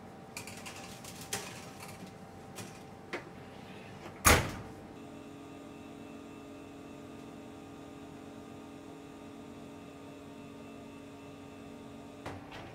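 Metal sheet tray slid onto the wire rack rails of a stainless-steel commercial oven with a few light clinks, then the oven door shut with a loud bang about four seconds in. The oven then runs with a steady hum of several tones, which stops with a click near the end.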